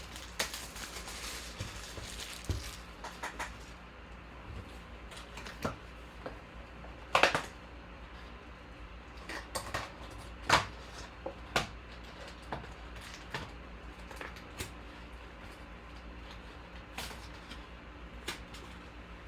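Opening a sealed trading-card hobby box and its packs by hand: scattered rustling, taps and clicks of cardboard and wrappers, with a few louder knocks about 7 and 10 seconds in.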